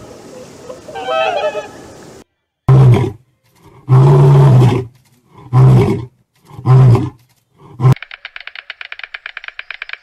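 Male lion roaring: four loud roars, each under a second long and about a second apart, then a short grunt that cuts off suddenly. Near the end a white stork clatters its bill in a fast, even rattle.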